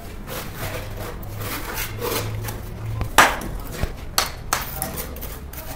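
Bricklaying: a mason's steel trowel scrapes and slaps cement mortar, and bricks are knocked into place on the wall. It comes as a scattering of sharp knocks and scrapes, the loudest a little over three seconds in.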